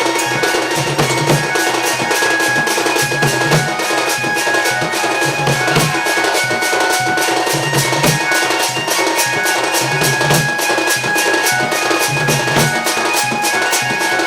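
Sambalpuri danda folk dance music: fast, dense drumming with a recurring low drum beat under a held melodic line.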